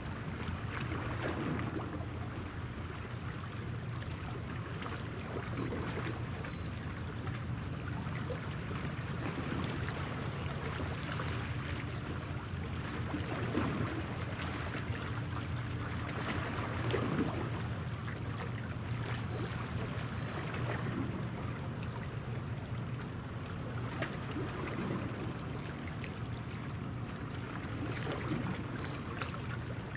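Steady low drone of the helicopter destroyer Kaga's gas-turbine propulsion as the ship passes offshore, with water lapping irregularly and a few faint high bird chirps.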